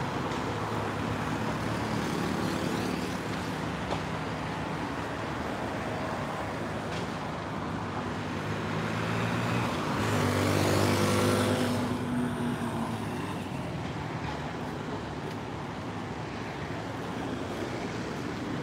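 Steady road traffic, with one motor vehicle passing close and loudest about eleven seconds in.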